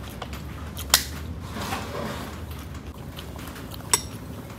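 Eating sounds at a table: rice being mixed by hand on a plate, with chewing. There are two sharp clinks, one about a second in and one near the end; the second rings brightly as an aluminium cola can is tipped over a glass to pour.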